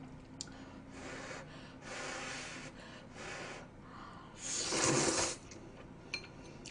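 A person slurping thick stir-fried Neoguri ramyeon noodles from a bowl: four slurps about a second apart, the last the longest and loudest.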